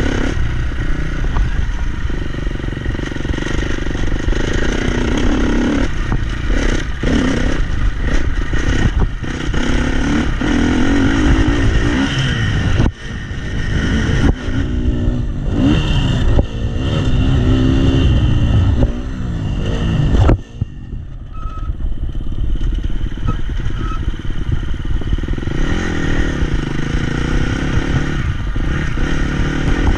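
Dirt bike engine revving up and down as it is ridden along a dirt track, its pitch rising and falling with the throttle. Twice the throttle is shut and the engine note drops sharply for a moment, about a third of the way in and again about two-thirds in, before it picks up again.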